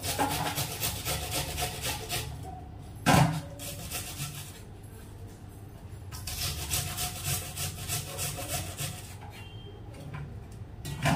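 Carrot and onion grated by hand on a metal box grater: quick repeated rasping strokes, with one louder knock about three seconds in.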